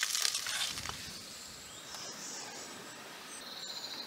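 Faint high-pitched insect chirping, the kind grasshoppers or bush-crickets make in summer grass. It comes in as thin shrill trills from about two seconds in, with a run of short repeated chirps near the end, over a soft outdoor background hiss.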